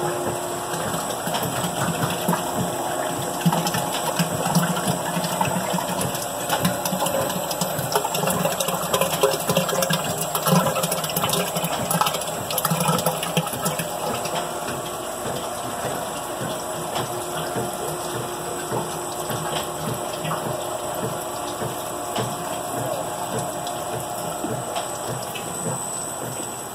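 Industrial sludge dewatering machine running, its screw auger turning through wet sludge: a steady mechanical run with water draining and many small clicks and crackles, busier in the first half.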